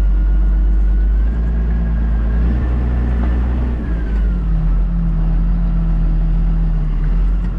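Massey Ferguson 3690 tractor running, heard from inside the cab: a steady low engine hum with a whine above it that rises a little in pitch about a second and a half in and falls back around four seconds in.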